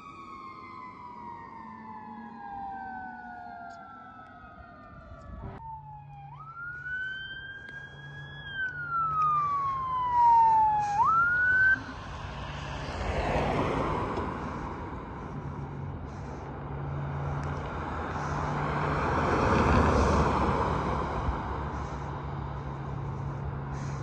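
Fire engine siren wailing and falling slowly in pitch as the truck moves off. After a cut, a siren winds up and down again, jumps up and stops abruptly about halfway through. Vehicles then pass on the road in two swells, over a low steady engine hum.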